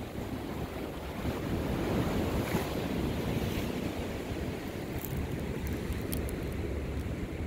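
Ocean waves washing, with wind buffeting the microphone; a few faint clicks about five to six seconds in.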